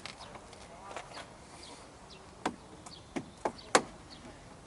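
Sharp plastic clicks and knocks from a Renault Logan's door trim panel and fittings being worked loose by hand, five or so separate strokes with the loudest about three-quarters of the way through.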